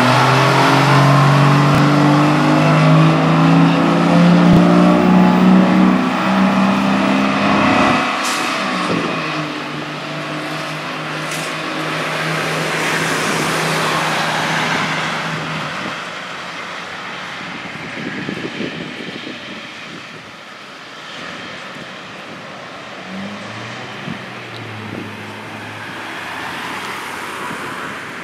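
Engine of a 1982 Sutphen pumper fire engine accelerating away, its pitch climbing steadily for several seconds, dropping at a gear change about eight seconds in, then holding and fading as the truck drives off.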